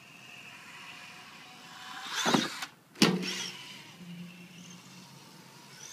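Electric motor of a Vaterra Twin Hammers 1/10-scale RC rock racer whining as it speeds toward a jump ramp. The sound grows to a loud peak about two seconds in and goes briefly quiet while the truck is in the air. About three seconds in comes a single sharp smack as it lands, then the motor whines on more quietly.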